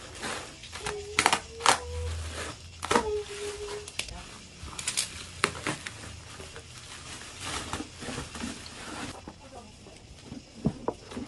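Plastic air-cushion packing pillows being punctured with a pen: several sharp pops, some with a brief squeak of the plastic. Then crinkling bubble wrap and plastic packing rustle as wrapped books are pulled from a cardboard box.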